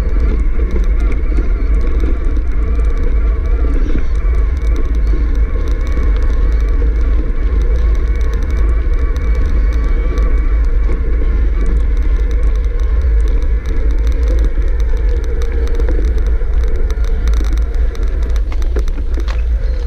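Wind buffeting an action camera's microphone as a mountain bike rolls fast down a dirt and gravel trail: a loud, steady low rumble with the hiss and crunch of the knobby tyres on loose dirt.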